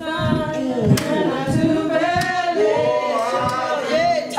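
A church congregation singing a hymn together without instruments, with sharp hand claps about every second and a quarter on the beat.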